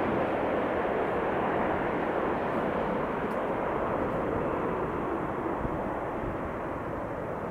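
Airbus A400M's four Europrop TP400 turboprop engines running as the aircraft touches down and rolls out, a steady rushing noise that slowly fades.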